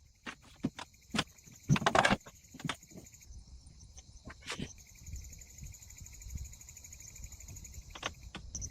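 Crickets trilling steadily, breaking off for about two seconds partway through and then resuming, with scattered clicks and knocks and a louder rustling burst about two seconds in.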